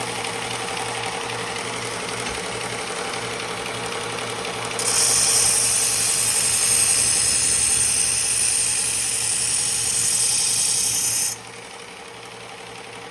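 Electric knife-sharpening machine running steadily. About five seconds in, the chef's knife edge meets the abrasive and a loud, high grinding hiss takes over for about six seconds. It stops suddenly, leaving the machine running more quietly.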